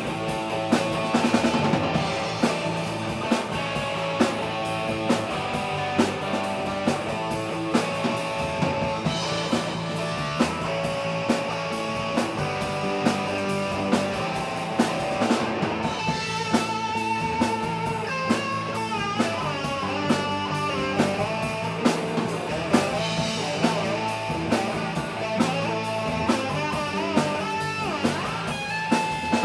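Live rock band playing: electric guitar, electric bass and drum kit, with a steady drumbeat.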